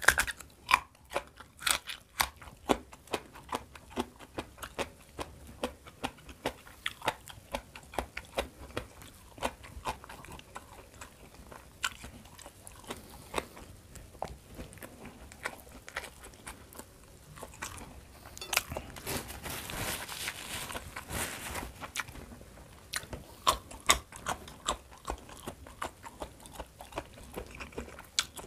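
Close-miked chewing and crunching of food, with crisp bites about two per second at first, then slower and more irregular. About two-thirds through, a few seconds of steady hiss rise under the chewing.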